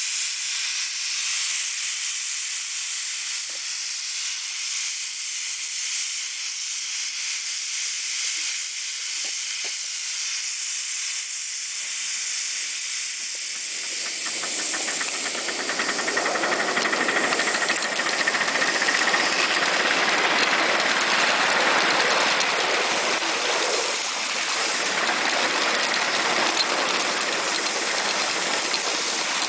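Miniature live-steam locomotive hissing steam. About halfway through the sound gets louder and fuller as the locomotive gets under way along the track.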